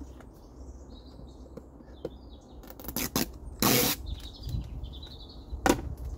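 Knocks and clatter of a collapsible plastic washing-up bowl being handled, the loudest a short rustling clatter about three and a half seconds in, with another sharp knock near the end. Small birds chirp now and then over a steady low wind rumble.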